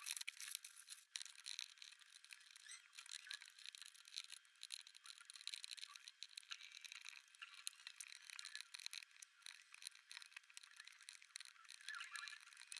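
Sped-up handling of cardboard jigsaw puzzle pieces on a table: a faint, thin, fast clatter of rattling and scraping.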